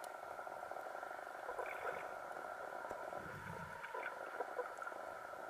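Underwater ambience picked up by a camera in a waterproof housing: a steady hum with scattered faint clicks, and a brief low rumble about three seconds in.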